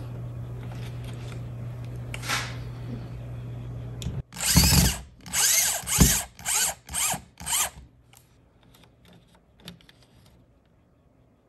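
Power drill driving a mounting screw through a thermostat base plate into the wall: one longer run, then five short trigger pulses, the motor spinning up and down each time. Faint clicks of handling follow.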